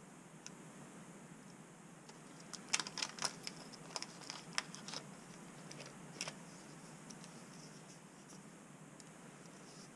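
Small clicks and crinkles of a small plastic bag and soldering iron parts being handled, in a cluster about three to five seconds in and once more about six seconds in, over faint room hiss.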